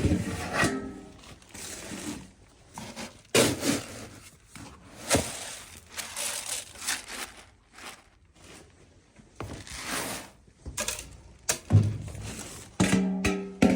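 Scattered knocks, thuds and rustling crunches from scooping and pouring horse grain and handling the feed bucket, with a short pitched sound just before the end.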